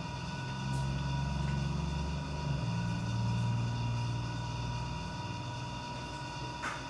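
A low motor rumble that swells over the first few seconds, shifts slightly in pitch, and then fades away, with a faint steady high hum under it.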